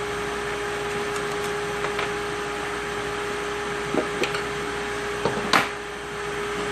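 Handling of engine parts from a disassembled Mazda 2.0 engine (piston, connecting rod and rod cap): a few light clicks and knocks, a pair about four seconds in and a louder cluster about a second later, over a steady hum with a constant tone.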